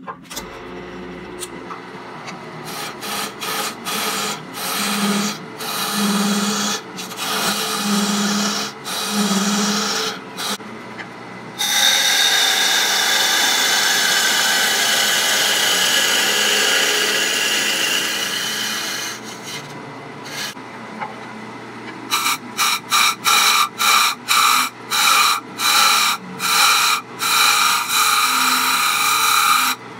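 A turning tool cutting into an oak bowl spinning on a wood lathe as the inside is hollowed out. It makes a string of short cuts at first, one long unbroken cut in the middle, then a quick run of short cuts near the end.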